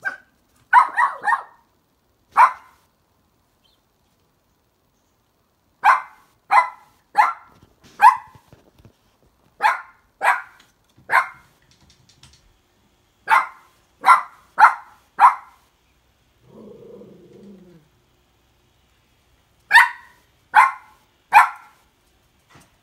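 Cavalier King Charles spaniel puppy barking: short, sharp barks in quick runs of three or four with pauses between. About two-thirds of the way through there is one softer, lower sound lasting about a second.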